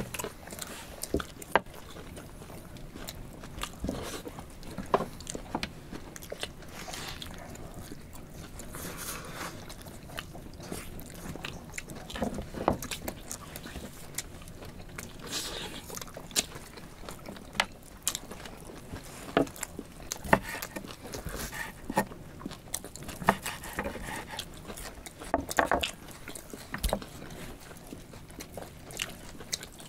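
People eating bone-in khorkhog meat by hand: close chewing and biting, with irregular sharp clicks and taps from knives working meat off the bones on the wooden board.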